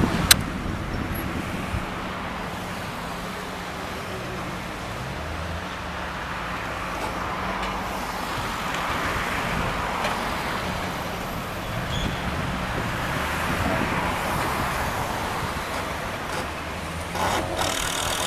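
Engines running steadily amid road traffic noise, with one sharp click just after the start.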